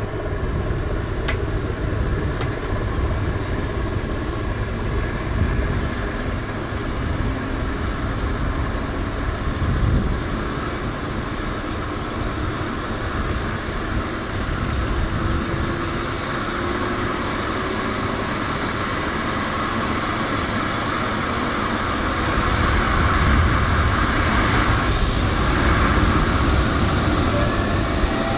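Twin-turbine EC135 helicopter running, its turbine whine and rotor noise steady, with a thin whine rising slowly in pitch and the whole sound growing louder after about twenty seconds.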